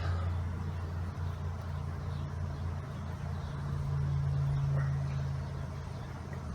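A steady low hum with no clear knocks or clinks, swelling slightly about four to five seconds in.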